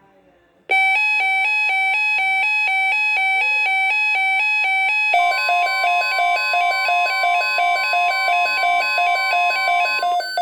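Weather radio alert alarm: a loud electronic beeping that alternates rapidly between two pitches and starts abruptly. About halfway through, the steady NOAA Weather Radio 1050 Hz warning alarm tone joins under it, marking an incoming watch alert.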